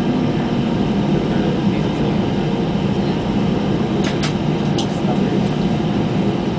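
Steady cabin noise inside an Airbus A320 with its engines running at low power, even and unchanging in level. A couple of faint brief rattles come about four and five seconds in.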